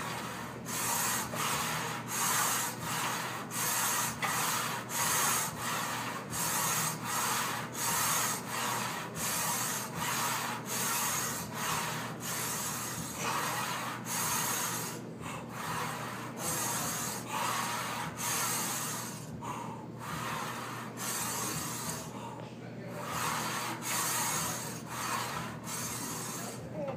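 Rhythmic rasping strokes, about three every two seconds, in time with repeated Smith machine shoulder-press reps, with a few short breaks between strokes.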